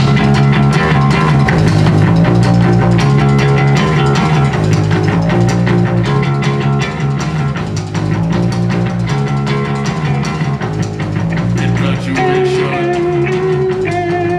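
Live rock band starting a song abruptly with electric guitars, bass and drum kit playing at full volume. A higher held melody joins near the end.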